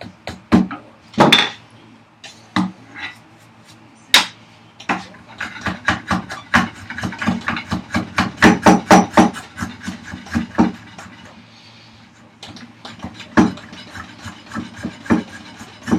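Hand tools cutting into the hardwood of a vise chop to widen the opening for the guide rods: a series of short, sharp strokes, scattered at first, then a quick run of about three a second in the middle, with more near the end.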